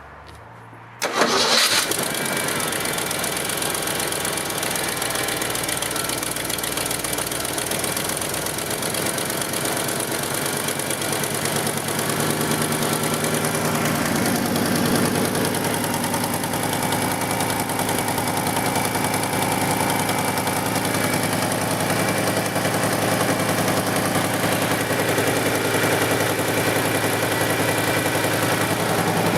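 Ford F-150 engine starting about a second in, then idling steadily. From about halfway the low hum shifts and wavers as the steering is worked back and forth to purge air from the freshly filled power-steering system.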